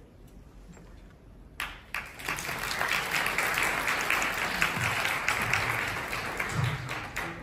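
Audience applauding. It starts suddenly about a second and a half in and keeps going as dense, steady clapping.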